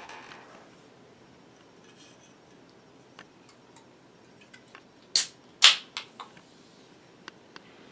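Aluminium drink can being opened by its pull tab: a few light clicks of fingers on the tab, then two sharp cracks about half a second apart, the second trailing off in a short hiss.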